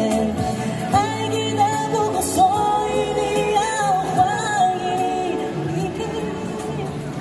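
Live Mandopop singing over a pop accompaniment, a voice carrying the melody with wavering vibrato on long notes above steady bass notes.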